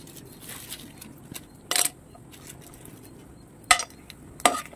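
Small phuchka puris frying in hot oil in a kadai, a faint steady frying hiss. Three short metallic clinks against the pan come about two, three and four seconds in, as more dough discs go into the oil.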